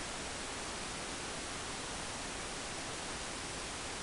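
Steady, even hiss with no distinct events: the background noise of an old camcorder recording.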